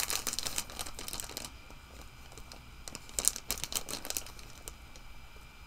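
Scissors snipping into a plastic mailer bag, the plastic crinkling and rustling in quick bursts of small clicks, easing off in the middle and picking up again later.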